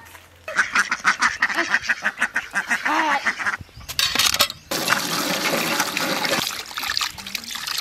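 Hand pump being worked, with water splashing from its spout into a steel bowl of fish being rinsed; a stretch of steady gushing water comes about halfway through.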